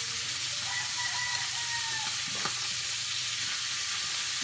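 Steady hissing background noise. A faint, held high tone sounds from about a second in, and a single click comes about halfway through.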